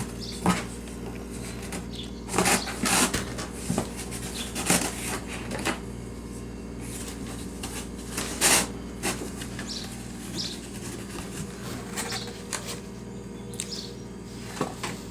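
A kitten scrabbling and clawing at a cardboard box: irregular bursts of scratching and rustling, loudest about two and a half, four and a half and eight and a half seconds in, over a steady low hum.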